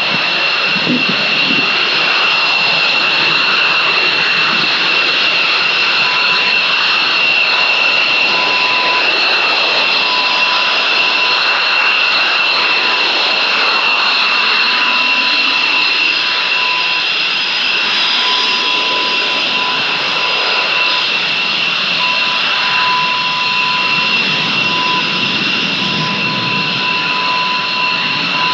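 Panavia Tornado IDS's twin Rolls-Royce RB199 turbofans running at steady power: a loud, constant rushing jet noise with a high-pitched whine that holds one pitch, and a fainter higher whine above it.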